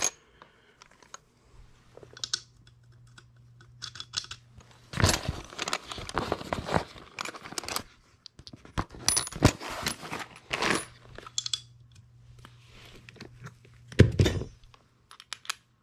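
Metal hand tools and sockets clinking and rattling while being picked out of a zippered tool bag, in several short bursts of clattering handling.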